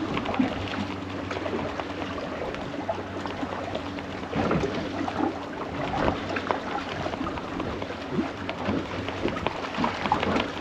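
Small fishing boat at sea: a low steady hum under water and wind noise, with scattered small clicks and knocks.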